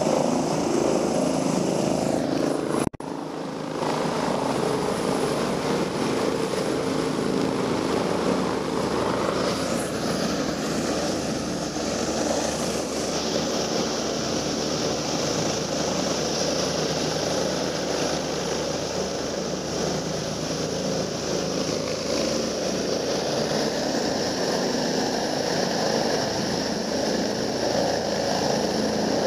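DRF Luftrettung rescue helicopter hovering and descending to land close by: steady beat of the rotor and the whine of its turbines. The sound drops briefly about three seconds in.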